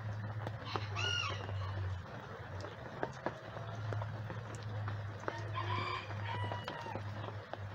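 Backyard chickens calling: a short call about a second in and a longer one around five to six seconds in, over a steady low hum and the hiss of light rain.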